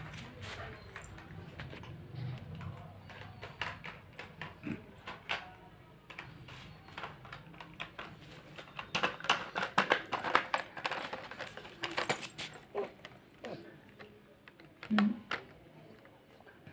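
Plastic toys clicking and knocking together as a toddler handles them, a run of quick clatter in the middle, with a short baby vocal sound near the end.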